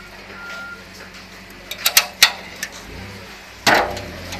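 A vehicle's reversing alarm beeps once, faintly, near the start. A few sharp clicks follow about two seconds in, and a louder thump, the loudest sound, comes near the end.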